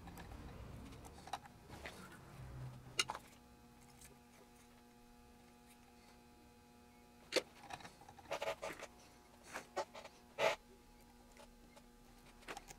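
Scattered small clicks and taps from hands working parts into a small circuit-board kit clamped in a board vise, with a low rustle of handling in the first few seconds and a cluster of clicks a little past halfway.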